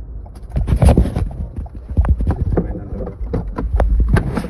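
Low rumble of a moving car heard from inside, with a run of irregular knocks and clatter.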